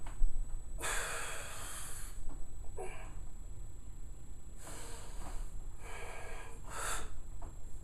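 A man breathing hard in forceful, noisy exhalations under the strain of holding flexed bodybuilding poses. There is a long breath about a second in, followed by shorter, sharper ones.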